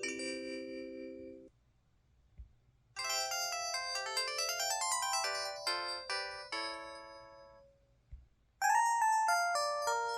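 Short polyphonic synthesized jingles, the system tones of an LG LU6000 Cyon phone played on its Yamaha YMU792 64-voice sound chip, recorded straight from the handset. One tone ends about a second and a half in. A bright, chiming run of quick notes starts about 3 seconds in and fades out, and a new tone begins about 8.5 seconds in. There is a faint click in each gap.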